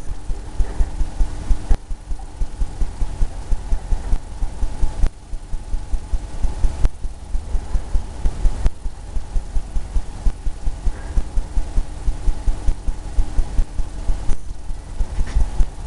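Paintbrush scrubbing quickly back and forth on a stretched canvas, making a rapid series of low thumps, about four a second.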